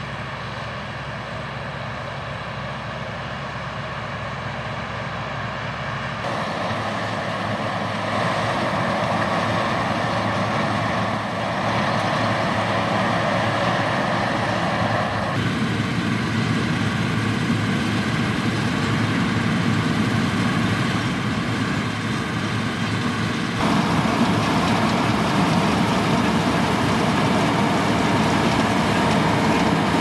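Claas Lexion combine harvester running while harvesting grain: a steady engine and threshing drone. Its tone changes abruptly a few times, and it is louder in the later part.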